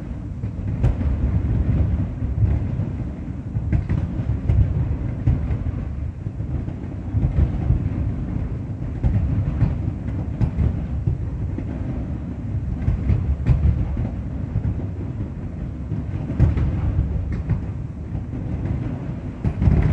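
Aerial fireworks shells bursting in quick succession, their booms running together into a steady low rumble, with sharper cracks standing out every few seconds.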